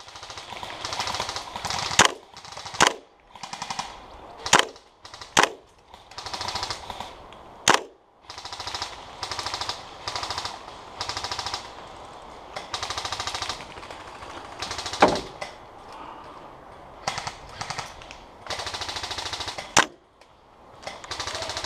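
Airsoft guns firing: repeated bursts of rapid full-auto fire, each lasting a second or two, with single sharp cracks in between.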